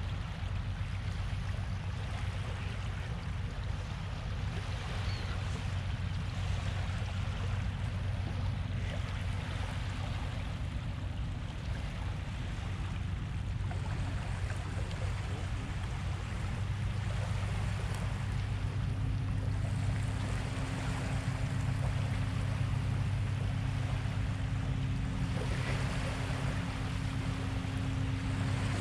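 Small waves lapping gently on a shallow sandy shore, with a steady low drone underneath that grows louder about two-thirds of the way through.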